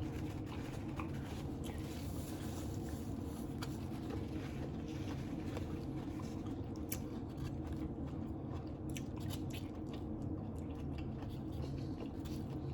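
A person chewing and biting into a taco close to the microphone, with scattered wet clicks and crunches that come more often in the second half. A steady low hum runs underneath.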